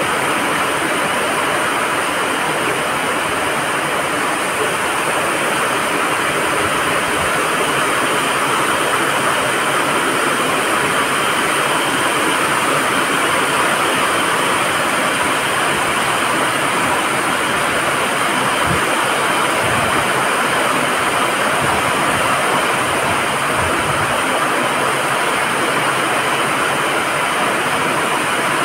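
Heavy rain falling steadily, a dense, even hiss of water on roofs and pavement.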